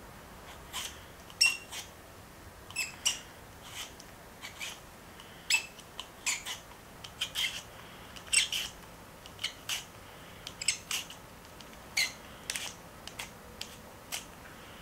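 Handheld vegetable peeler scraping skin off a raw potato: a run of short, crisp scraping strokes at an uneven pace, roughly one or two a second, some with a slight squeak.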